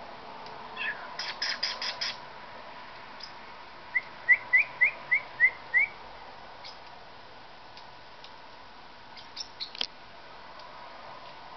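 Parrotlet giving a quick run of seven short, rising chirps, the loudest sound. Before and after them come small clusters of sharp clicks and taps as a parrotlet eats seed from a plastic food dish.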